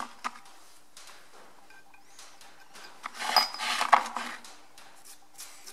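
Metal tools clinking and rattling on a steel workbench as they are handled, mostly in a burst of clatter about three seconds in, over a faint steady hum.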